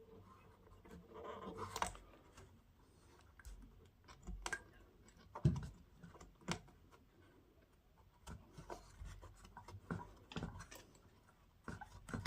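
Faint scratching and scattered small clicks and knocks of a TDA2030 amplifier IC being handled and its pins pushed through the holes of a home theatre amplifier circuit board. A rustle comes near the start and the loudest knock about halfway through.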